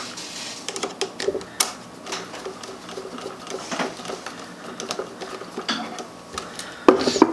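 Scattered small clicks, taps and scrapes of hand work on a wall switch as the bare ground wire is fastened to it, with a louder click near the end.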